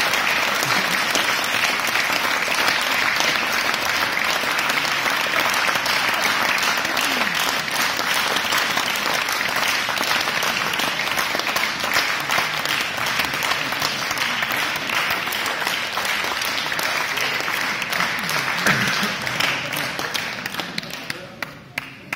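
Audience applauding a choir, a dense steady clapping with a few voices in it, thinning to a few scattered claps near the end.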